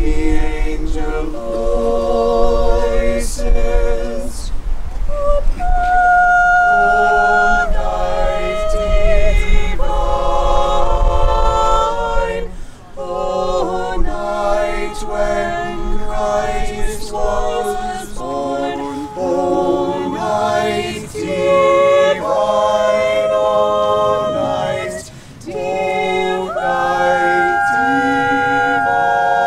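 A small group of carolers singing a Christmas carol a cappella in several-part harmony, closing on a long held chord near the end.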